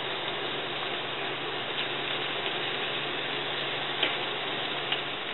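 Hot oil at about 350 °F sizzling and crackling steadily in a pan as spoonfuls of oat and cornmeal hush-puppy batter deep-fry. A few faint clicks sound over it.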